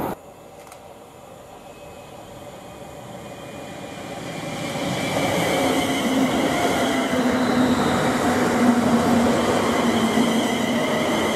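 A train approaching and running past, growing louder over the first half and then holding steady, with a steady low hum and a fainter high whine over the rumble.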